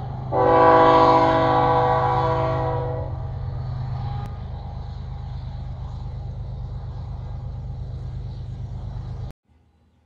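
Train horn sounding a steady chord for about two and a half seconds over a steady low rumble. The rumble runs on after the horn stops and cuts off abruptly near the end.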